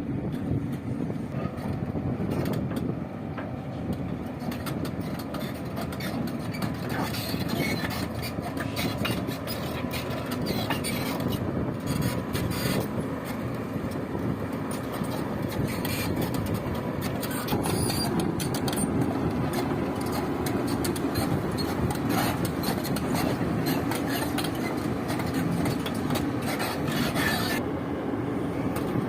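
Heavy diesel machinery running steadily under load, with continuous irregular rattling and clattering over the engine, a little louder in the second half.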